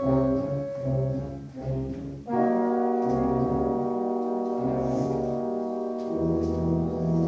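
Brass band playing: a moving phrase, then about two seconds in a full chord comes in and is held, with the low brass entering strongly near the end.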